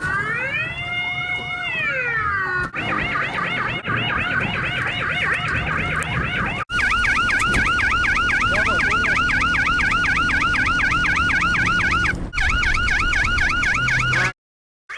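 Iranian police car siren: a slow wail, rising and falling once over about two and a half seconds, then switching to a fast warbling yelp of several cycles a second, with a low rumble beneath. It cuts off suddenly near the end.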